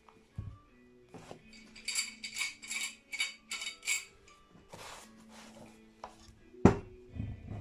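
Metal clamps clinking and rattling as a clamp is fitted around a glued guitar neck: a quick run of about eight metallic clinks over two seconds, then a single hard knock near the end.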